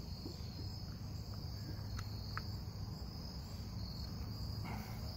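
Crickets trilling steadily in one continuous high-pitched drone, with a couple of faint light clicks about two seconds in.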